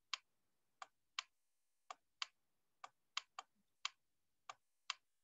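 Faint, sharp clicks, about eleven of them at irregular intervals, from a stylus tapping the writing surface as handwriting is written on screen.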